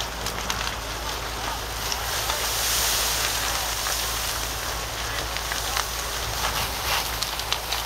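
Fire hose stream spraying with a steady hissing rush that grows louder for a couple of seconds about two seconds in, over sharp crackles and pops from a burning barn.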